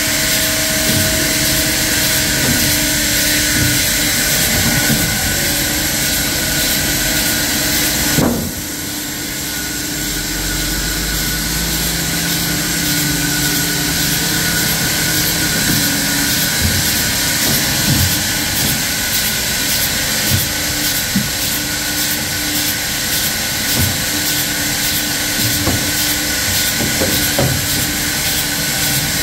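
Sawmill saw running steadily while cutting walnut logs, a loud even noise with a strong high hiss. About eight seconds in there is a single sharp knock, after which the machine briefly runs a little quieter.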